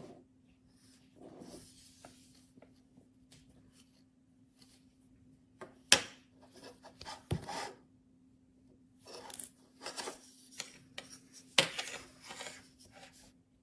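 Handling noise of small objects rubbed and set down on a hard surface, with scattered clicks; the sharpest clicks come about six and eleven and a half seconds in, over a faint steady hum.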